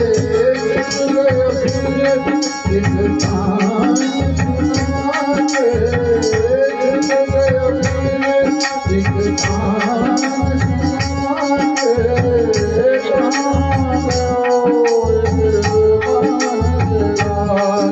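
A bhajan: devotional singing over drum and sharp percussion strokes keeping a steady, even beat.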